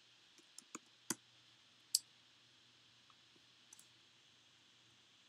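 Scattered clicks of a computer keyboard and mouse as code is typed and a line selected: about eight sharp clicks, the two loudest about one and two seconds in, over a faint steady hiss and hum.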